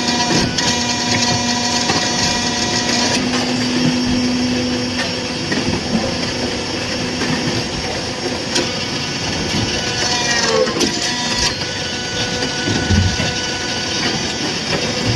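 Interlocking brick-making machine running: a steady mechanical drone with several held tones, broken by scattered knocks and clatter, and a brief falling whine a little past two-thirds of the way through.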